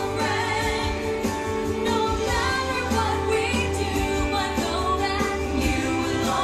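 Opening theme song of a TV show: sung vocals over instrumental music with a steady low bass.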